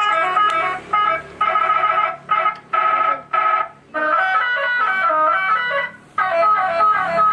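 Telolet horn melody played through a modified police-siren module on a Yamaha Scorpio Z motorcycle: a run of loud multi-note honks whose notes change from blast to blast, broken by short gaps.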